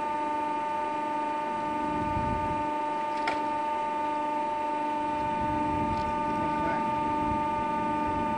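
Steady high-pitched machine whine with a lower hum that pulses on and off over a low rumble; one sharp click about three seconds in.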